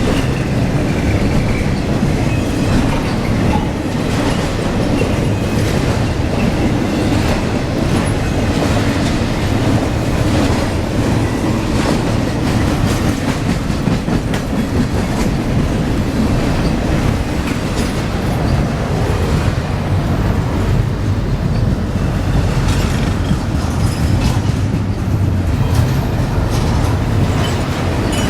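Freight train passing close by, a heavy steady rumble with the wheels clicking over rail joints. It is loud enough to be ground shaking.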